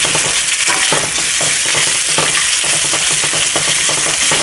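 Pork frying in hot oil with garlic and chili, sizzling steadily as it is stir-fried, with frequent short scrapes and knocks of the stirring utensil against the pan.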